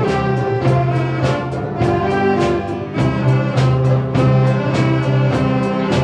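Children's school orchestra playing an upbeat piece: violins and flutes carrying the tune over a drum kit keeping a steady beat.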